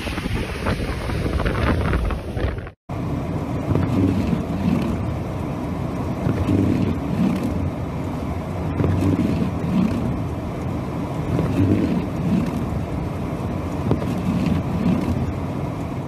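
Blizzard wind gusting hard against the microphone. About three seconds in, after a short break, it gives way to a car's interior while driving through the storm: a steady low rumble of engine and road noise with wind against the car.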